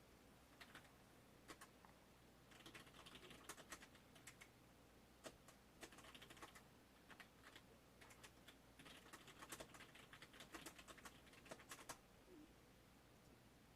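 Faint, quick clicks in several irregular bursts, with a light hiss inside each burst.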